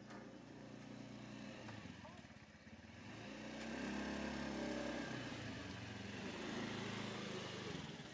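An engine running steadily, growing louder about three seconds in.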